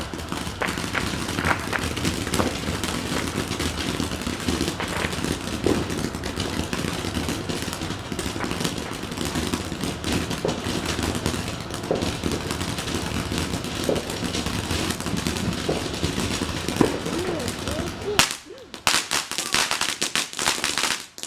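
Consumer fireworks crackling and popping in a rapid, dense, continuous stream of sharp cracks, with a brief break about eighteen seconds in before it picks up again more thinly.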